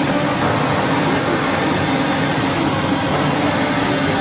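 Steady, loud rushing noise with no breaks or distinct strokes.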